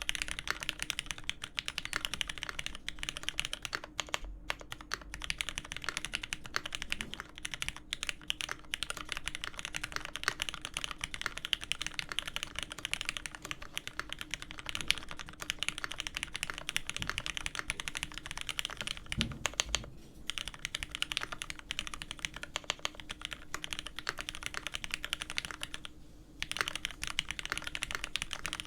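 Typing on a custom mechanical keyboard, a Dolphin Special Ver.2021 with an aluminium plate, lubed Hyperglide Cherry MX Black linear switches on 67g springs and GMK keycaps. Keys are struck in a fast, steady stream, with short breaks about 20 and 26 seconds in.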